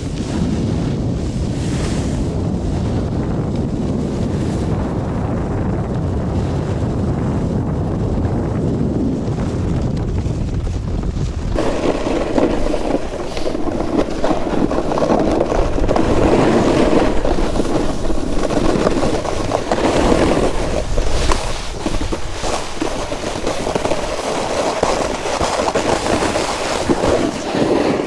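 A snowboard sliding and scraping over soft, wet snow, with wind buffeting the microphone. About twelve seconds in the sound changes abruptly to a brighter, louder hiss.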